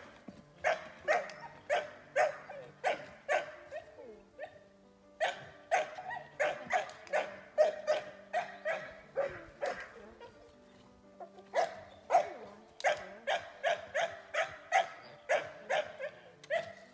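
A puppy barking over and over, short sharp barks in quick runs of two or three a second with brief pauses between runs, over soft background music.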